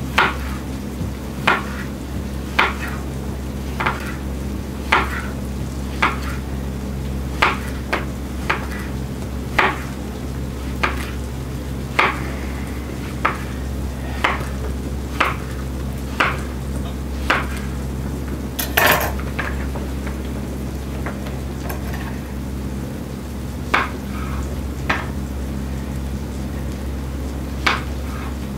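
Kitchen knife slicing a zucchini into rounds on a wooden countertop, the blade knocking the wood at about one stroke a second in a steady rhythm, with one louder knock about two-thirds of the way through.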